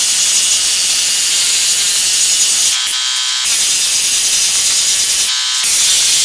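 Angle grinder with a cutoff wheel grinding rust and old paint off a car's sheet-metal roof: a loud, steady grinding with the motor's whine, the low grinding dropping out briefly twice as the wheel lifts off the metal.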